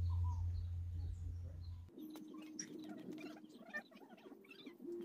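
Faint bird and farmyard animal calls, high chirps and a wavering call, with scattered small clicks. A low rumble in the first two seconds stops abruptly.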